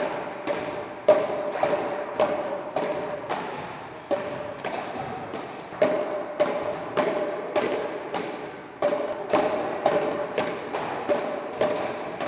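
Frescobol rally: a rubber ball struck back and forth between solid wooden paddles. It makes a hard knock roughly every half-second, each with a ring of echo from the large hall.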